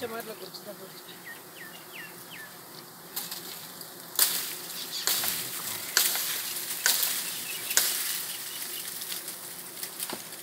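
Wild honey bees buzzing around their exposed comb, with several loud rustles and crackles from about three to eight seconds in. A few short high chirps sound about two seconds in.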